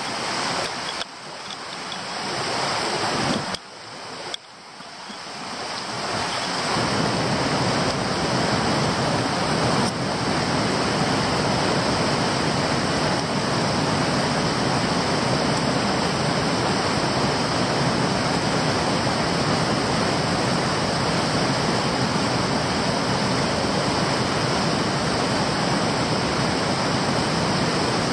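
Stream water rushing, a steady even hiss of flowing water. In the first five seconds it drops out suddenly a few times and swells back up each time.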